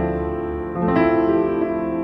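Background music of sustained keyboard notes, with new notes struck about three-quarters of a second and one second in.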